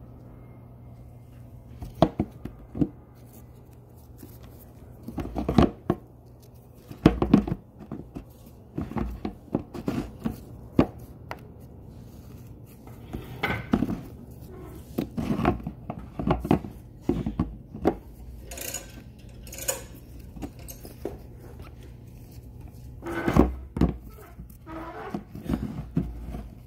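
Handling noise: irregular knocks, scrapes and rustles as things are touched and moved at close range, over a steady low hum.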